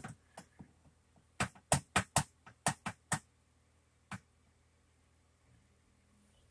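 A string of sharp clicks or taps, a few at first, then a quick run of about eight over two seconds, and a last one about four seconds in.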